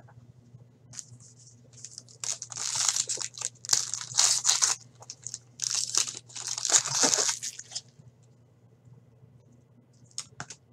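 Foil wrapper of a hockey card pack crinkling and tearing as it is ripped open by hand, in two main spells of crackling about two and six seconds in.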